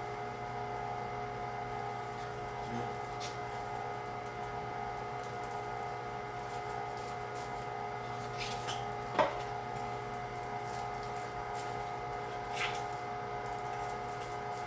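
Carnivore 1-horsepower electric meat grinder running steadily with a constant hum as it pushes ground pork through a stuffing tube into a collagen casing. A single sharp knock about nine seconds in, with a couple of fainter ones around it.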